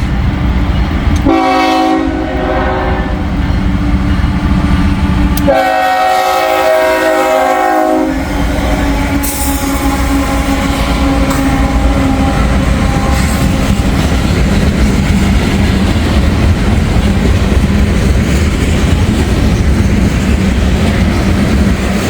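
Freight locomotive horn sounding long blasts for a grade crossing through the first eight seconds or so, then the train rolling past with a steady rumble and the clickety-clack of wheels over the rail joints.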